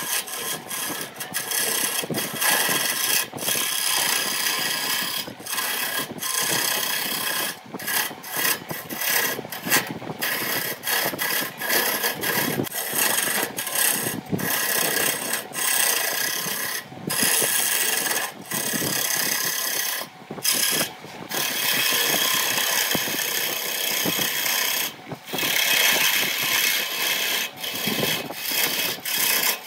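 Turning chisel cutting a spinning wood blank on a wood lathe: a harsh, rasping scrape of shavings peeling off, broken by many short gaps as the tool comes off the wood.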